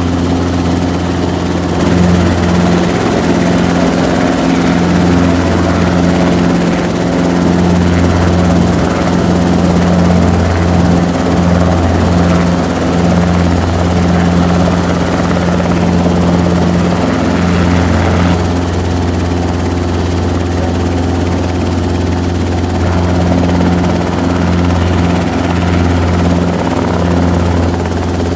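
Robinson R22 helicopter running, its piston engine and rotors making a steady, even drone that stays loud and hardly changes.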